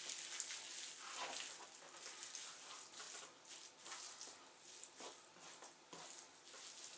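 Raw chicken breast slices being kneaded and turned by hand on a plastic cutting board to work in black pepper: faint, irregular squishing and soft pats.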